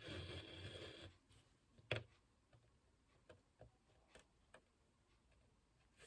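Near silence with small handling sounds: a soft rustle for about the first second, a sharp tick about two seconds in, then a few fainter ticks.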